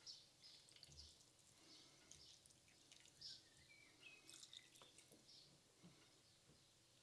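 Very faint trickling and dripping of aspic broth poured from a plastic measuring jug into glass jars of meat, near silence overall.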